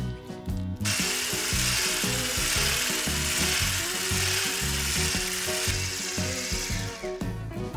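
Electric hand mixer with a whisk attachment running steadily, beating mascarpone and cream in a glass bowl. It starts about a second in and stops shortly before the end.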